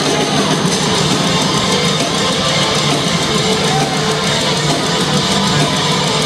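A heavy metal band playing live, heard from within the crowd: electric guitars in a loud, steady, dense wall of sound.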